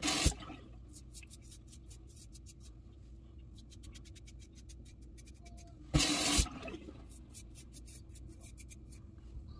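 Double-edge safety razor, a RazoRock Lupo with a Personna Platinum blade, scraping stubble off a lathered scalp in runs of quick short strokes. Two brief rushes of tap water, at the start and about six seconds in, as the razor is rinsed.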